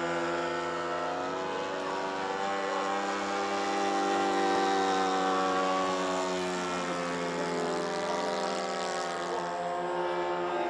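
Engine of a radio-controlled model airplane in flight, a steady propeller drone whose pitch wavers slightly as the plane manoeuvres. It is loudest about halfway through.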